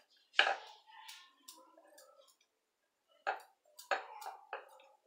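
A handful of sharp, irregular clicks and taps from rolling out puris: a wooden rolling pin knocking and clicking on a metal rolling board, the loudest about half a second in and a cluster near the end.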